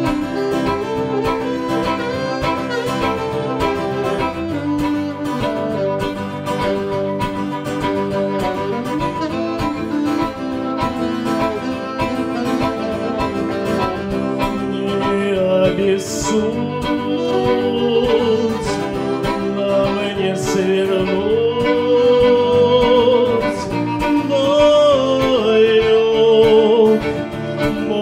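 Instrumental break of a live acoustic song: violin and saxophone playing melody lines over a strummed acoustic guitar. It grows louder in the second half.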